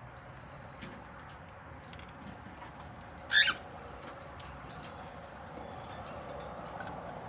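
Cockatiel giving one short, sharp, high call about three seconds in, with faint clicking in the background.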